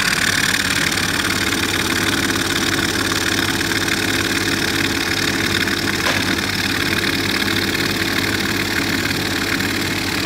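MS1200B automatic electric jig saw machine running steadily, its reciprocating blade sawing through a plywood die board.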